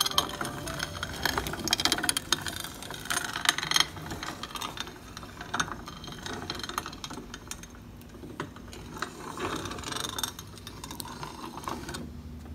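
Hand-cranked cast-iron corn grinder being turned, grinding corn with a dense, irregular crunching and rattling that stops near the end.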